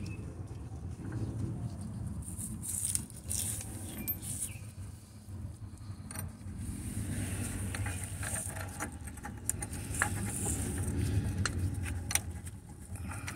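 Gloved hands handling bolts at a car's engine torque mount: scattered small metal clicks and clinks with glove rubbing, over a steady low rumble.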